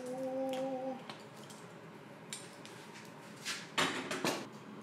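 Red-hot steel carburizing canister set down on an anvil: a few sharp metallic clanks and scrapes near the end. Earlier, a short steady ringing tone lasts about a second.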